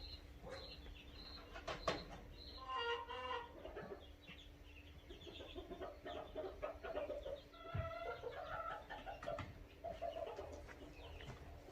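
Chickens clucking and calling in a barn, with high repeated peeps near the start and a few soft knocks.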